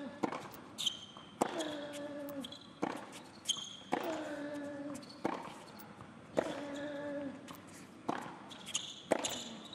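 Tennis rally on a hard court: sharp racket strikes and ball bounces every second or so. Three times a player lets out a long grunt with his shot.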